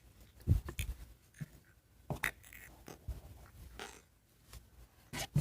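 Hands handling a plastic syringe while stuffing slime into it: scattered light clicks and taps, with a dull thump about half a second in.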